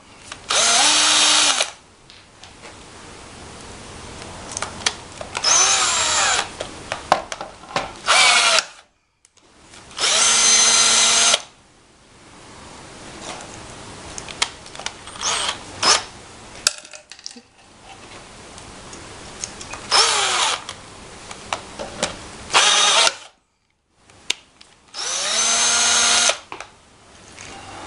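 Cordless drill driving a riveting attachment to set pop rivets: about eight short bursts of motor whine, each a second or so long, some falling in pitch, with clicks and handling noise between them.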